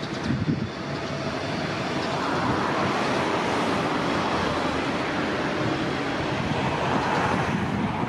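Wind rumbling on the microphone, with a rushing noise that swells about two seconds in and eases near the end.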